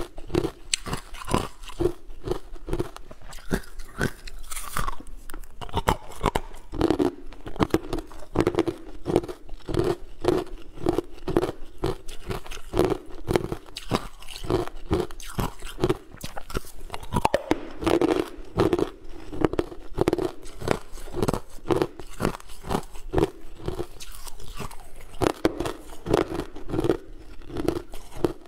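Ice cubes being bitten and chewed close to a lapel microphone: a dense run of hard, cracking crunches, several a second, with no pause.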